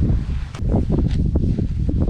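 Wind buffeting the microphone in a steady low rumble, with irregular rustling from a soapy wash mitt being rubbed over a car's paint.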